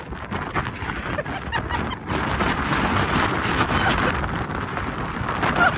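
Wind buffeting the microphone over a loud, noisy outdoor background, with scattered small clicks.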